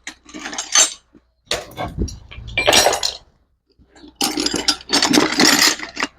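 Small metal hardware such as washers and nuts clinking and rattling as hands rummage through it in search of a washer, in three spells of clatter.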